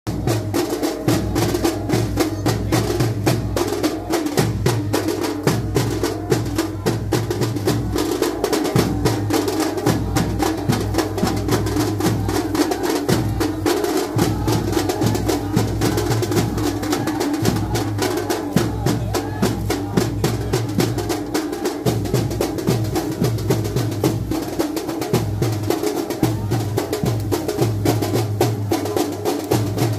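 Fast, continuous drumming in a driving rhythm, with the hiss of heavy rain underneath.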